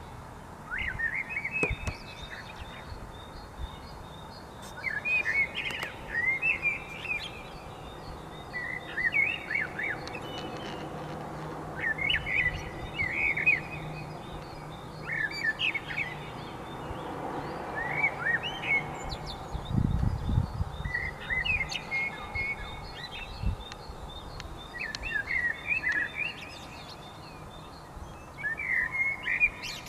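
Thrush singing at dawn in short phrases of about a second, each followed by a pause of a second or two. A second bird chirps faintly and rapidly at a higher pitch throughout, and a brief low rumble comes about two-thirds of the way through.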